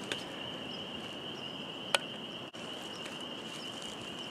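A steady, high-pitched animal chorus, with a faint click at the start and a sharp click about two seconds in, and a brief drop in sound about halfway.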